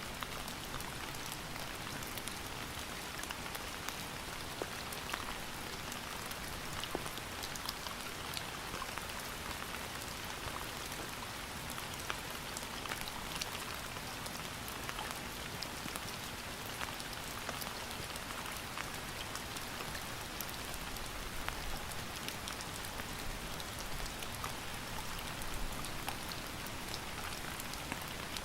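Steady rain falling on a surface, an even hiss scattered with the sharp ticks of single drops.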